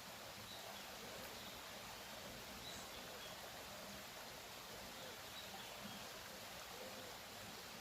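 Quiet outdoor background: a steady hiss with a few faint, short bird chirps scattered through.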